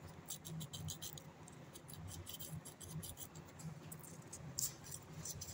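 Fine sandpaper rubbed back and forth over the contact points of an electric iron's thermostat, giving two runs of quick, faint, short scratches over a low steady hum. The rubbing cleans the fouled contacts, which the repairman blames for the iron's fault.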